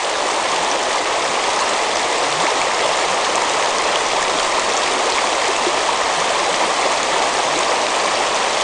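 Shallow river water rushing steadily over gravel and stones.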